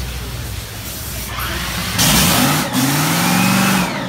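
Top Fuel dragster's supercharged Hemi V8 sounding in a short burst: it starts suddenly about halfway in, its pitch rises for about two seconds, and it cuts off shortly before the end.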